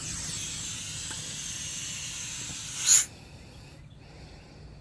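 Air hissing steadily out of tires being deflated together through a four-tire airing-down hose manifold. A short louder burst comes near three seconds in, and then the hiss drops to a faint one.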